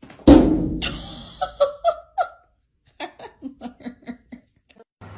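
A loud thump as a cat runs into a sliding glass door, followed by a person laughing in short bursts that turn into a quick run of 'ha-ha' pulses about three seconds in.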